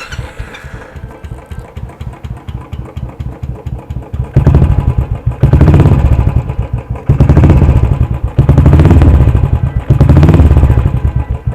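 Royal Enfield Classic 350 single-cylinder engine fitted with an aftermarket dolphin silencer, idling with an even exhaust beat. It is then revved five times, each blip about a second long, and settles back to idle near the end.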